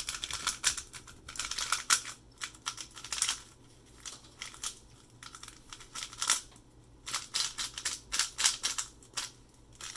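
A brand-new Weilong WR M magnetic 3x3 speedcube being turned quickly by hand: rapid runs of plastic clicks and swishes as the layers turn, in bursts with a lull around the middle.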